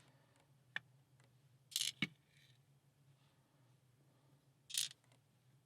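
A few short, sharp metallic clicks and snaps, spaced irregularly, from tweezers and small lock parts being handled while a lock cylinder is taken apart. A faint low hum sits under them.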